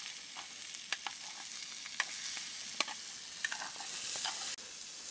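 Bacon sizzling in a metal pan over a campfire: a steady frying hiss with sharp pops now and then, dropping a little in level near the end.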